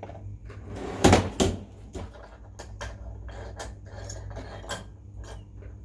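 Small tools and packaging handled on a workbench: a run of light clicks and taps, with two louder knocks about a second in.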